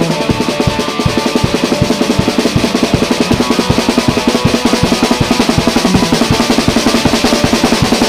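Rock music with fast, even drumming, several drum hits a second over sustained guitar and bass.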